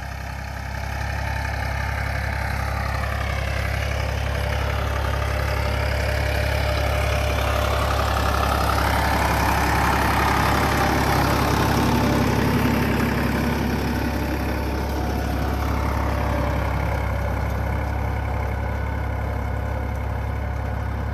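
Farm tractor's diesel engine running steadily under load while pulling a ridging implement through the soil. It grows louder as the tractor passes close by around the middle, then eases off a little as it moves away.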